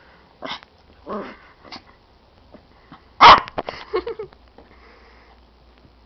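Small dog giving a few short, sharp barks, the loudest about three seconds in.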